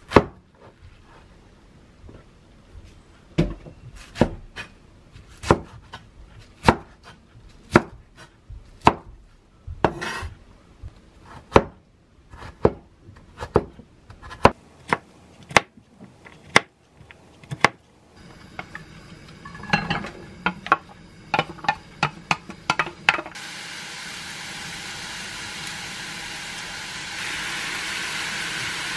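Cleaver chopping enoki mushrooms and zucchini on a wooden cutting board: single sharp knocks about a second apart, then quicker, lighter chops. From about two-thirds of the way in, a steady sizzle of vegetables stir-frying in a pan on a gas stove, growing louder near the end.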